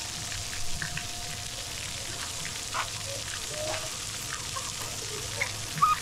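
Splash pad water jets spraying and spattering onto the ground in a steady hiss, with faint short cries of distant children.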